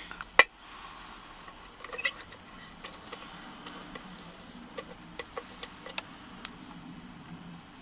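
Metallic clicks and taps of a Yale Y125/40 laminated padlock and lock-picking tools being handled: one sharp clack about half a second in, then scattered faint ticks.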